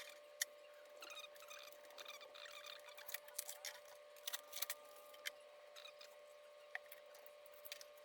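Faint handling noises: scattered small clicks and taps, a few sharper ones around the middle, over a steady faint hum.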